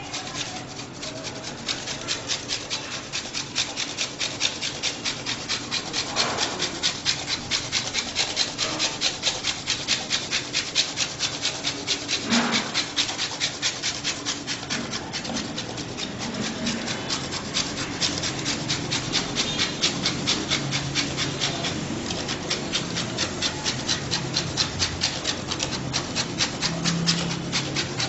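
Flat metal hand grater rasping steadily as a white ingredient is grated over a dish, in quick regular strokes, several a second.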